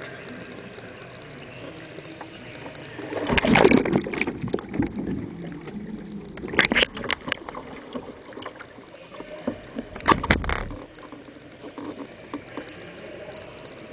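Kayak capsizing and rolling back upright in a pool: a loud splash about three seconds in as the boat goes over, a few sharp water noises while it is under, and another splash around ten seconds in as it comes back up.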